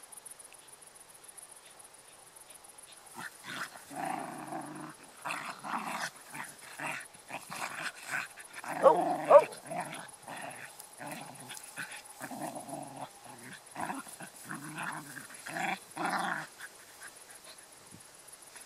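Two dogs, a black schnauzer and a shepherd-type mix, growling at each other in rough play: a run of short, rasping growls that starts about three seconds in and stops about two seconds before the end, loudest near the middle, where a brief higher-pitched cry breaks through. It is play-growling, not a real fight.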